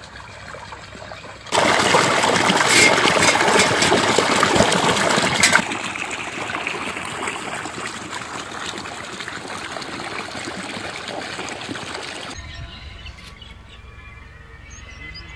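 Water gushing from an irrigation pipe outlet into a paddy-field channel, a steady rushing wash. It is loud from about a second and a half in for around four seconds, then fainter. Near the end it gives way to background music.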